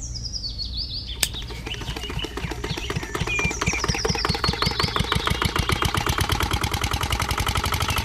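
A click about a second in, then a small engine running with a rhythmic chugging that quickens and grows louder.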